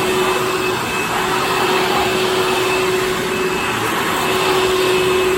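Old Hoover Fold Away upright vacuum cleaner running steadily: an even motor hum over the rush of air, its freed-up brush roll turning again.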